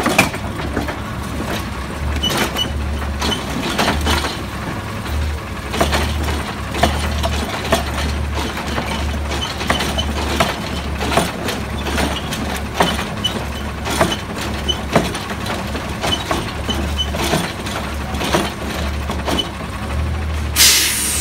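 Automated side-loader garbage truck emptying a trash cart: the engine runs with an uneven low throb while the hydraulic arm lifts the cart and shakes it out over the hopper, with repeated clanks and knocks. A short burst of hissing air comes near the end.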